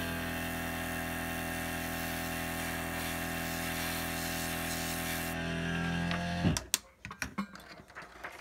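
Airbrush spraying with a steady air hiss over the hum of its small compressor motor. The hiss stops about five seconds in and the compressor cuts off about a second later, followed by a few light clicks of handling.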